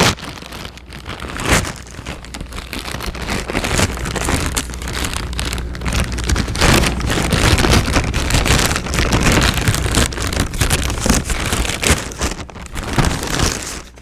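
White mailing envelope crinkling and crackling as it is pulled open by hand: a continuous, dense rustle of packaging, loudest in the middle.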